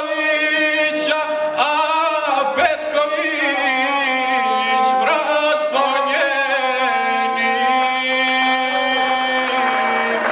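Gusle, the single-string bowed folk fiddle, playing with a man singing an epic chant in unison with it. Near the end he holds one long steady note that stops as the song finishes.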